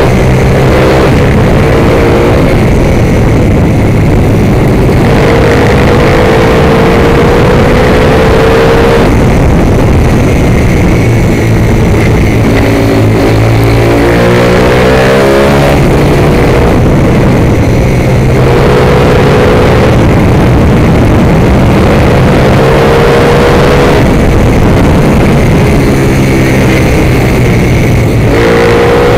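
Onboard sound of a motorcycle ridden hard on a track: the engine's pitch climbs under acceleration and falls off for braking and corners, again and again, over a constant rush of wind noise.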